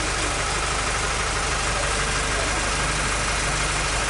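Fire truck's engine idling, a steady, unchanging drone.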